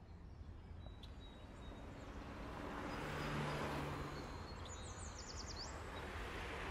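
Outdoor ambience: a vehicle passes, swelling up and fading away around three to four seconds in, over a low steady rumble. A quick run of bird chirps comes a little after five seconds.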